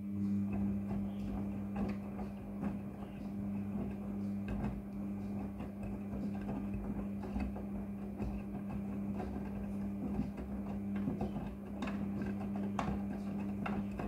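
Front-loading washing machine on its wash tumble with a load of wet jeans: the drum motor hums steadily while the soapy water sloshes and the denim tumbles and slaps inside the drum, with many small knocks.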